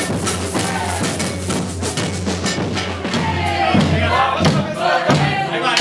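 Ciranda dance music with a regular drum beat over a steady low bass. About halfway through, singing voices come in over it.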